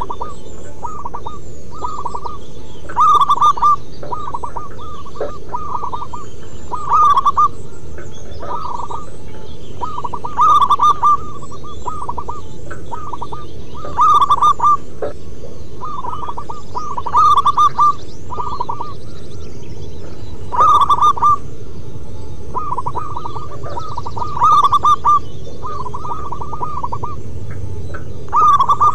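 Zebra doves (perkutut) cooing: repeated phrases of quick staccato coos, a louder phrase about every three and a half seconds with softer phrases between.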